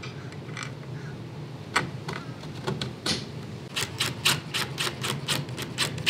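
Cordless drill-driver running a mounting bolt into a trolling motor's bow-mount bracket. It gives a couple of single sharp clicks, then an even run of sharp clicks at about five a second in the second half.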